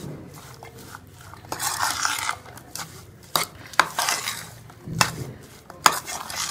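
Metal spoon stirring a moist filling of boiled peas, onion and tomato in a mixing bowl: scraping swishes with several sharp clinks of the spoon against the bowl.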